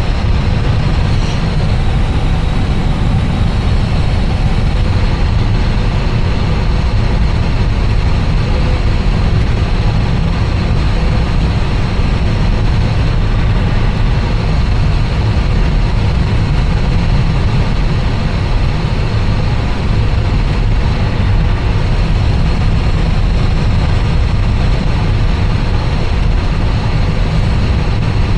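Steady drone inside an Airbus A320 with its engines running, heaviest in the low range, with a faint high whine held throughout. The level holds even, with no build-up of takeoff thrust.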